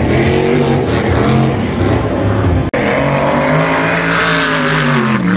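Engine running at high revs, its pitch rising and falling, broken by a sudden brief gap about two and a half seconds in.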